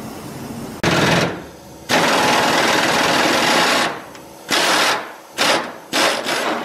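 Pneumatic impact wrench hammering on a stubborn truck bed bolt through a long socket extension, in five bursts: a short one about a second in, a long run of about two seconds, then three short bursts.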